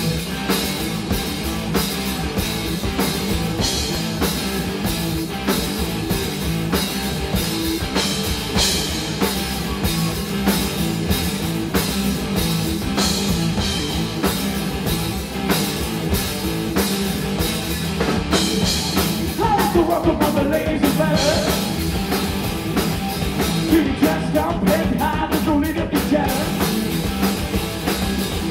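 Live rock band playing loud and continuous: electric guitars, bass guitar and a drum kit keeping a steady beat, with gliding lead lines from about two-thirds of the way in.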